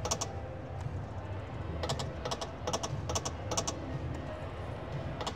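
Konami video slot machine's reels stopping, with quick clusters of sharp clicks as the reels land on a spin, over a low steady casino din.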